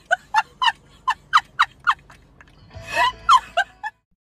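A squirrel squeaking in a quick run of short chirps, each dropping in pitch, about four a second for two seconds. A few more chirps come over a rustle about three seconds in.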